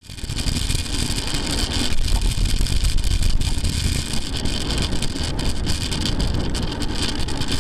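Wind rushing over a handlebar-mounted bicycle camera's microphone while riding, a steady rumbling roar mixed with road noise.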